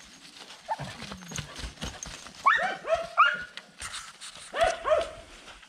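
A dog barking in quick groups of two to four barks, starting about two and a half seconds in, with a few low thumps before the barking begins.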